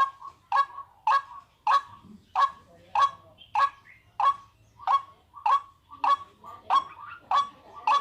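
Waterhen call played as a hunting lure: short, sharp, honking notes, about one and a half a second, repeated in a steady unbroken rhythm.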